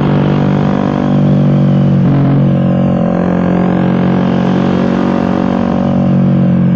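Suzuki GSX-R150's single-cylinder four-stroke engine running under way through an aftermarket racing exhaust, a loud steady drone whose pitch shifts briefly about two seconds in.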